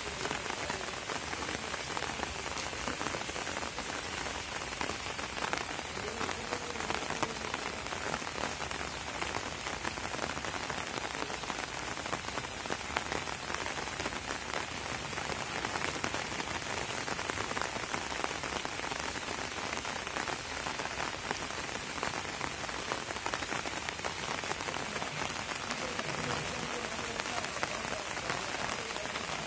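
Steady rain falling, an even hiss of countless small drop impacts on the ground and nearby surfaces.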